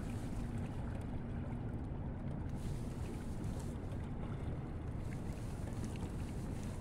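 Steady low rumble of wind on the microphone, with water moving around a kayak under way.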